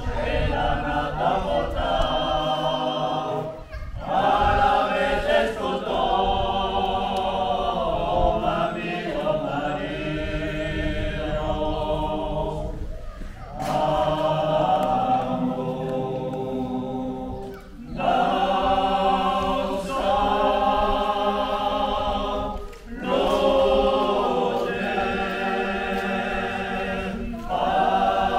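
A small group of voices singing a Gascon song a cappella in close harmony. Long held phrases are separated by short breaks for breath every four to nine seconds.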